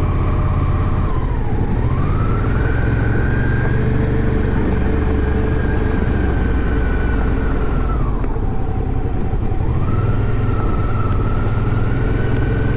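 Suzuki V-Strom 650's V-twin engine running at low road speed under light throttle, with a heavy low rumble. Its note dips about a second and a half in and rises again, holds steady, then drops for a couple of seconds around the eight-second mark and climbs back near ten seconds, as the throttle is eased off and opened again.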